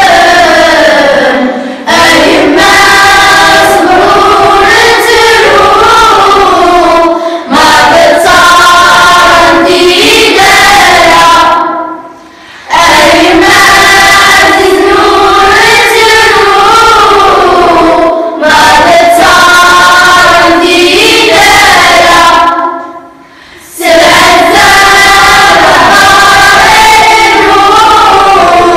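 A children's choir singing together in sustained phrases a few seconds long, with brief breaths between them and longer pauses about twelve and twenty-three seconds in.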